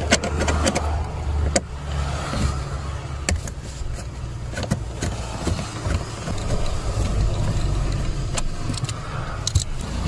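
Screwdriver working the screws of a plastic under-dash trim panel: scattered small clicks and scrapes of metal on plastic, over a steady low rumble.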